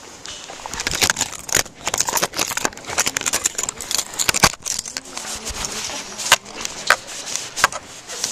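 Handling noise from a camera being held and fumbled with fingers over the microphone: irregular rustling and scraping with many sharp clicks and knocks.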